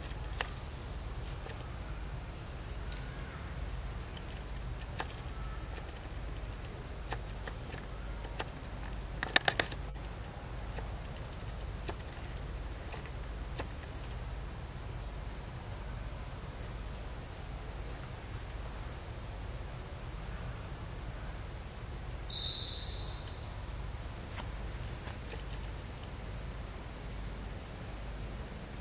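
Insect chorus shrilling steadily in several high, thin tones that pulse a little more than once a second, over a low outdoor rumble. A quick cluster of sharp clicks, the loudest sound, comes about nine and a half seconds in, and a brief high chirp comes about twenty-two seconds in.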